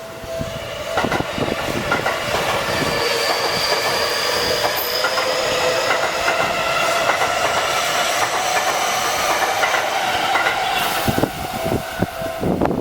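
Seibu 30000 series electric train passing over a level crossing, its wheels clacking over the rail joints, with a slowly rising motor whine through the middle. The crossing's warning bell rings steadily underneath.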